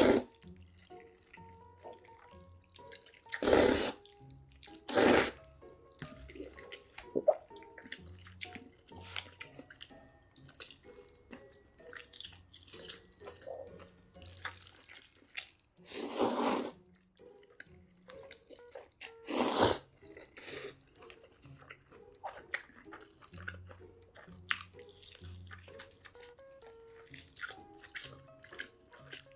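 Close-miked mukbang eating sounds: wet mouth clicks and smacks, broken by five loud slurps, the longest about two-thirds of the way through, over faint background music.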